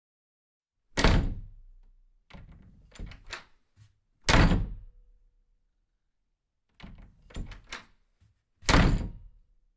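Three heavy thuds a few seconds apart, each dying away quickly, with lighter knocks and scrapes between them.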